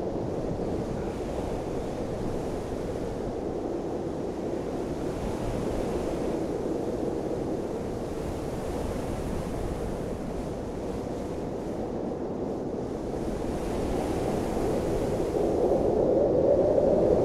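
Steady rushing wind, swelling a little near the end.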